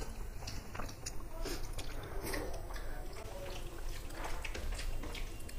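Soft wet squishing and many small clicks of bare hands mixing rice with dal and curry on steel plates.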